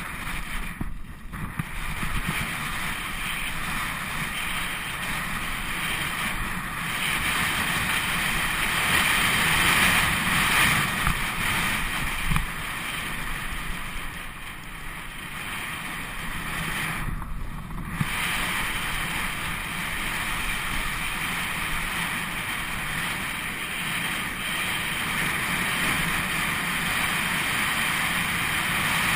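Wind rushing over the microphone of a bike-mounted GoPro Hero 2, mixed with the tyre noise of a Specialized Camber mountain bike rolling fast downhill on a tarmac lane. The high end of the rush dulls briefly about a second in and again about two-thirds of the way through.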